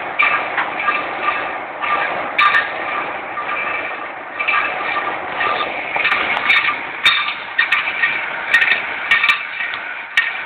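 Metal lathe cutting a workpiece, with a ringing tone from the tool that comes and goes and scattered sharp clicks and clinks.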